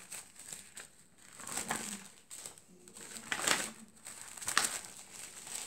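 Clear plastic document sleeves and paper pages in a ring binder rustling and crinkling as they are turned, in several short bursts.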